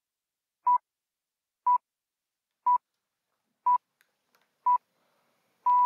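Radio hourly time signal: five short pips one second apart, then the longer final pip starting near the end, marking the top of the hour.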